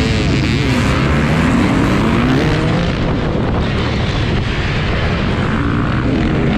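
KTM 150 two-stroke dirt bike engine under load, its pitch rising and falling again and again with the throttle and gear changes.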